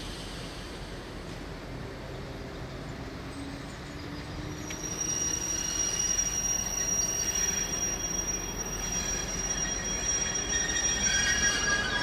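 DB class 628 diesel multiple unit rolling slowly into the platform, its low diesel rumble joined about halfway through by a high-pitched metallic squeal from the running gear that continues as the train draws close.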